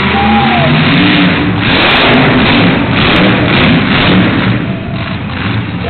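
Monster truck engine revving hard, with the revs climbing and the sound getting louder about a second and a half in as the truck drives up onto a row of crushed cars.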